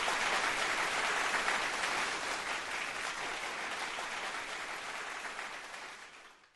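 Theatre audience applauding steadily after a song ends, the applause fading away over the last second.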